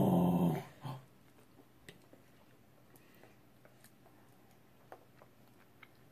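A brief, loud, low vocal sound lasting under a second right at the start, with a shorter one just after. Then faint, scattered clicks of a toddler's fork on a plastic high-chair tray.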